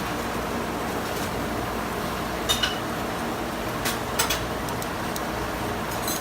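A few sharp clinks of metal kitchen utensils, once about two and a half seconds in and three times close together about a second later, over a steady background noise.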